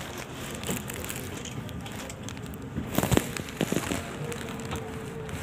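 Steady background noise with a cluster of sharp knocks and clicks about three seconds in.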